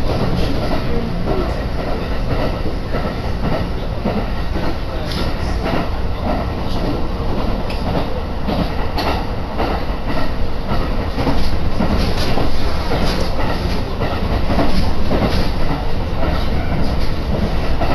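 Kintetsu Tenri Line train running, heard from inside the carriage: a steady low rumble with a continuous clatter of wheels over the rail joints.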